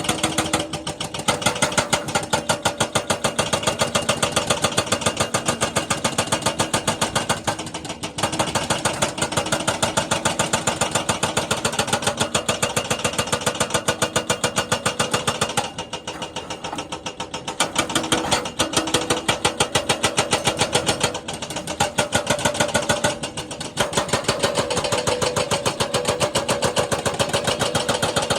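Jackhammer hammering in a rapid, steady train of blows, stopping briefly several times before starting again.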